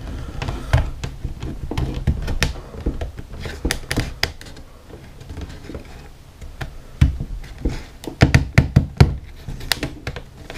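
A thin plywood panel pressed and worked by hand into a tight-fitting plywood console frame: irregular wooden knocks, taps and rubbing, with a burst of sharper knocks in the last few seconds.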